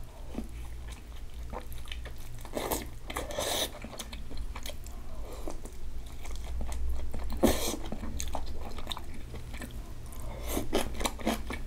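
Close-miked eating: biting into and chewing soft, broth-soaked fried tofu pouches stuffed with mochi, with a quick run of crunchy bites of kimchi near the end.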